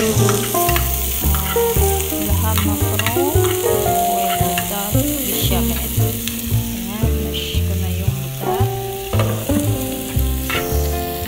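Diced onions sizzling as they fry in a pan, stirred and scraped with a metal spoon. Background music with a rhythmic bass line plays over the sizzle.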